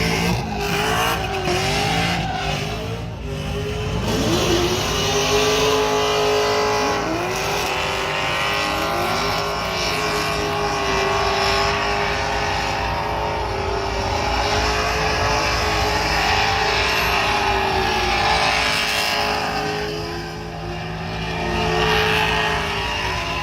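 Car engine running and revving, its pitch repeatedly rising and falling.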